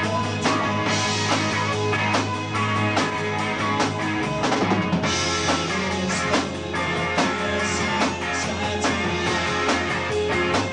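Live progressive rock band playing with guitar, keyboards and a drum kit over a steady drum beat.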